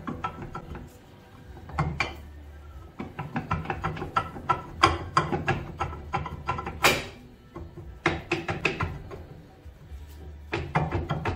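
A rear brake drum clunking and knocking on its axle studs as it is rocked and worked off by hand, with one louder metal clank about 7 seconds in. Background music plays under it.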